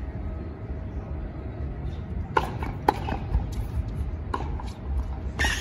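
Tennis ball being struck by rackets and bouncing on a hard court during a rally. There are sharp pops a second or so apart, the loudest near the end, over a low steady rumble.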